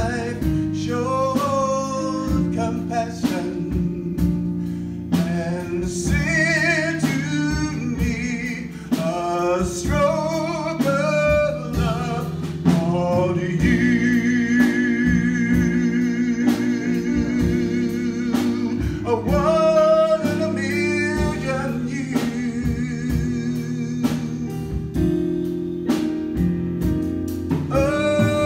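Male vocalist singing a love song into a handheld microphone over instrumental backing music, with sliding runs and long held notes and brief breaths between phrases.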